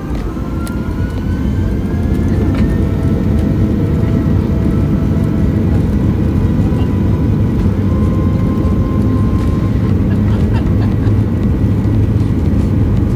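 Boeing 737 jet engines heard as a loud, steady low rumble, typical of an airliner cabin. The rumble builds over the first couple of seconds alongside a faint rising whine, then holds steady.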